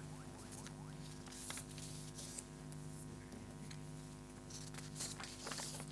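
Faint steady low hum, with a few light ticks and rustles over it.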